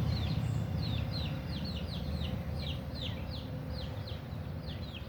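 Baby chicks peeping: a steady stream of short, high, downward-sliding peeps, about two to three a second, from several birds at once.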